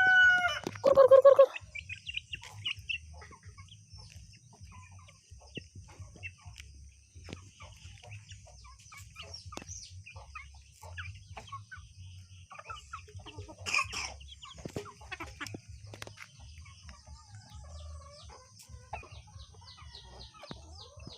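Chickens clucking, with a loud rooster-like crow about a second in, among many short high bird chirps and a steady high-pitched whine; a single knock about two-thirds of the way through.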